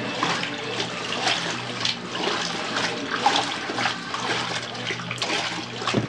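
Consul Facilite CWG11 top-load washing machine agitating on its turbo setting: water churning and sloshing in the tub over a steady motor hum, the agitator fitted with its spiral attachment.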